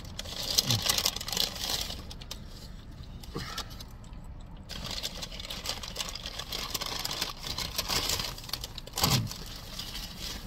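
Paper fast-food bag rustling and crinkling as it is handled, in two spells with a quieter gap between them. A short low murmur sounds about nine seconds in.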